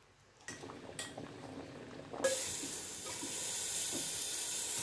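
A few light clinks of a metal pot, then from about two seconds in a steady sizzle of desi ghee heating in the pot.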